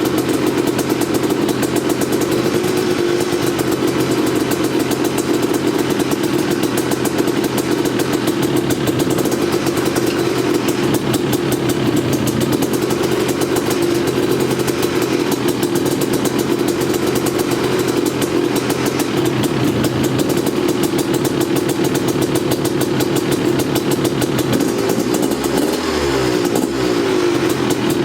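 1989 Yamaha YZ250's single-cylinder two-stroke engine running steadily, its pitch wavering briefly near the end. The freshly rebuilt engine is running well and sounds good.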